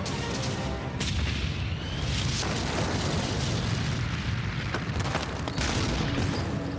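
Battle sound: a dense, continuous din of explosions and gunfire over a deep rumble, with fresh blasts about one, two and five seconds in.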